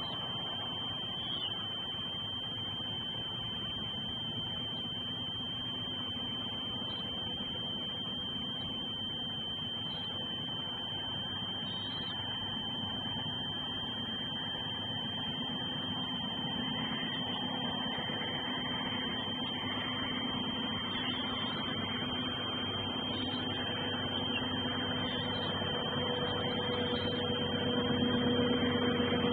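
Steady hiss with a constant high electronic whine, picked up by an outdoor nest camera's microphone, with a low hum that swells near the end.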